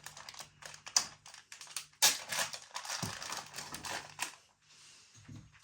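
Knife slitting open a plastic biscuit packet, the wrapper crackling in a run of sharp clicks; the sharpest come about one and two seconds in.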